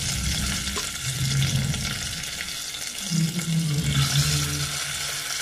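Chicken pieces sizzling as they deep-fry in hot oil in a wok, the sizzle growing louder about four seconds in as another piece is lowered in with metal tongs.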